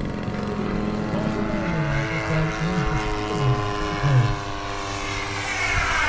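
Radio-controlled model airplane engine running steadily as the plane flies past overhead, its pitch falling as it goes by near the end.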